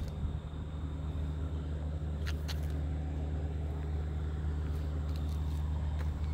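Vehicle engine idling with a steady low hum, with a couple of light clicks a little over two seconds in.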